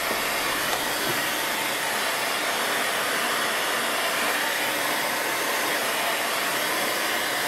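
Hot air gun running with a steady rush of air.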